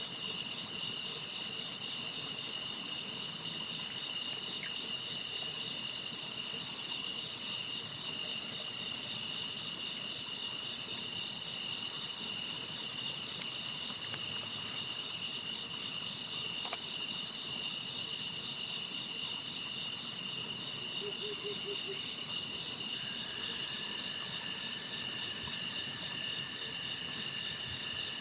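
Chorus of singing insects: several steady high trills overlapping, with one pulsing song repeating about one and a half times a second. A brief low pulsed call sounds about three-quarters of the way through, and another faint trill joins near the end.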